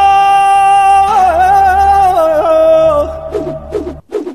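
A singer holding one long high note over a steady low accompaniment. The note wavers and moves through a few notes from about a second in, then thins into shorter notes and the music cuts off abruptly near the end.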